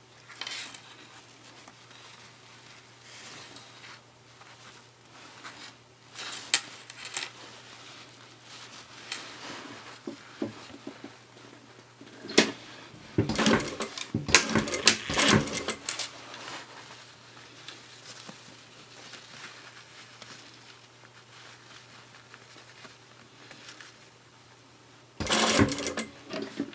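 Sewing machine stitching in two short runs, the longer about 13 seconds in and a shorter one near the end, with fabric rustling and small clicks of handling between them over a faint low hum.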